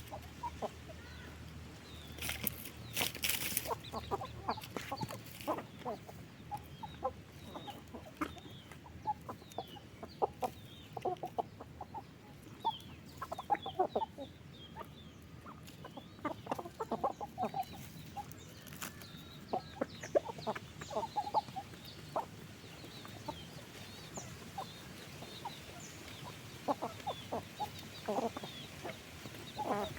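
A flock of chickens clucking, many short calls overlapping on and off, with a short louder noise about three seconds in.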